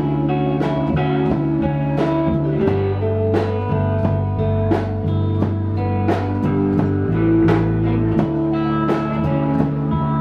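A live rock band with guitars, bass guitar and a drum kit playing a passage of a song at a steady beat, with drum and cymbal hits about every two-thirds of a second.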